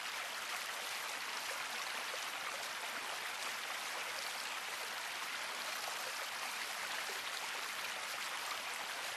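Small tundra stream running over rocks, a steady, even hiss of flowing water.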